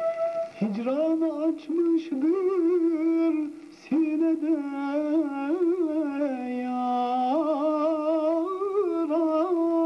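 Male singer's voice in Turkish classical style, in makam Mahur, entering about half a second in with an upward slide and then singing a long, ornamented melismatic line with wavering held notes.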